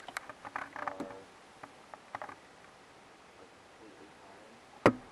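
Handling noises inside a car: scattered faint clicks and rustling in the first couple of seconds, a quiet stretch, then one sharp knock near the end.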